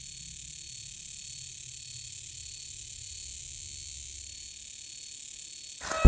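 Quiet, steady ambient film soundtrack: a low rumble under a faint high hiss. Just before the end it is cut off by a sudden loud start of music.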